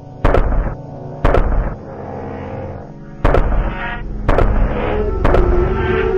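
Tank cannon firing five shots over background music: two shots a second apart, a pause of about two seconds, then three more a second apart.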